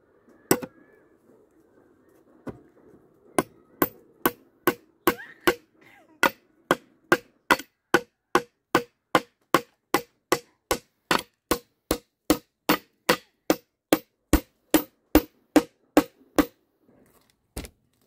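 A machete used as a hammer, striking a nail into split-bamboo slats: two single knocks, then a long steady run of sharp ringing blows at about two a second, with one last knock near the end.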